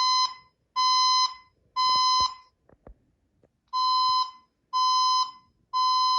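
System Sensor SPSCWL fire alarm speaker sounding a temporal-three evacuation tone: two sets of three steady beeps near 1 kHz, each about half a second long, with a pause between the sets.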